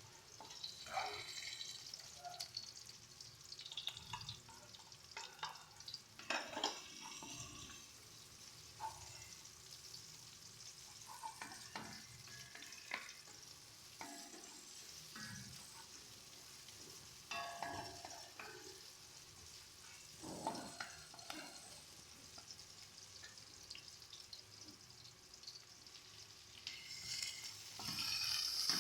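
Food frying and sizzling in a pan, with a utensil scraping and knocking against the pan at irregular moments as it is stirred; the sizzle grows louder near the end.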